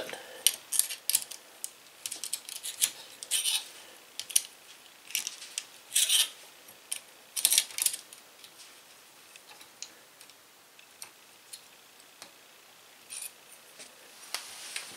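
Small metal wrench tightening the nut on an Anet A8 3D printer's hotend: irregular sharp metal clicks and scrapes, coming thick for the first half and thinning to a few light ticks.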